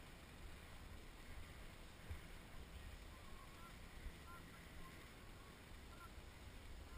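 Near silence on a helmet-mounted GoPro standing still on a ski slope: a faint low rumble, with a few faint, short, high-pitched calls in the middle.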